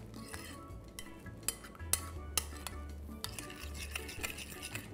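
Metal spoon stirring chia seeds into coconut milk in a glass bowl, with irregular clinks of the spoon against the glass.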